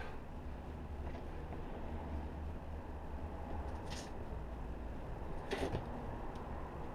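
A steady low rumble, with two brief scuffing noises from a boulderer's shoes and hands moving on the rock, about four and five and a half seconds in.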